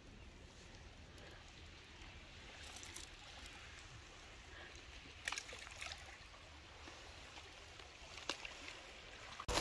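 Faint, steady trickling of water, with two sharp clicks, one about five seconds in and one near the end.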